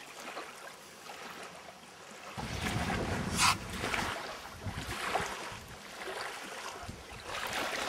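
Outdoor wind buffeting the microphone, starting suddenly about two seconds in with a stronger gust around three and a half seconds, over a faint steady wash of lake water.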